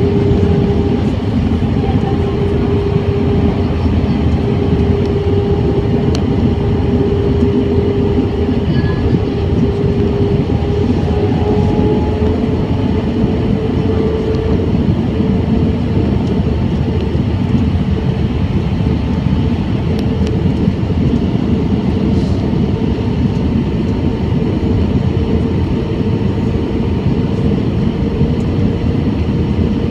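Airbus A320 cabin noise from a window seat over the wing in flight: a steady roar of jet engines and airflow, with an engine hum that rises slightly in pitch about halfway through.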